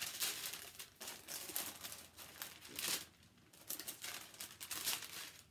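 Tissue paper rustling and crinkling as it is lifted and unfolded from a shoe box, in a run of uneven bursts with a brief pause about three seconds in.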